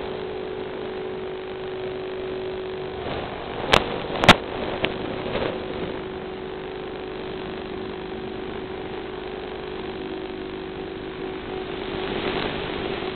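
Steady hum of an FPV aircraft's electric motors and propellers over a hiss, as picked up onboard, with a few sharp clicks about four seconds in.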